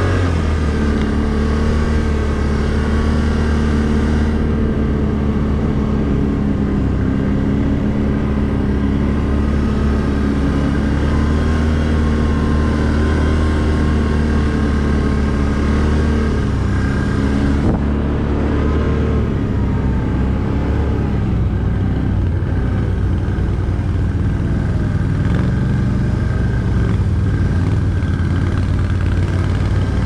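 Can-Am ATV engine running steadily under way at trail speed. Its note dips and rises a little with the throttle partway through.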